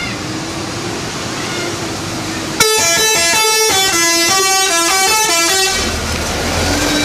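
Bus 'telolet' musical air horn playing a tune of several notes that step up and down in pitch, starting suddenly about two and a half seconds in and lasting about three seconds, over steady road noise; a low engine rumble follows near the end.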